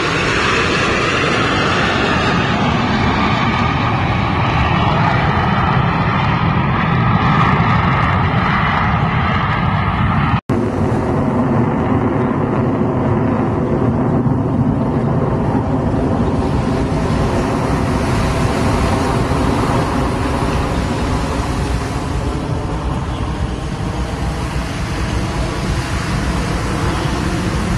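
Jet noise from a four-ship diamond of U.S. Navy Blue Angels F/A-18 Super Hornets flying a smoke-on loop overhead: a loud, steady rumble with a whining tone layered on top. It breaks off for an instant about ten seconds in.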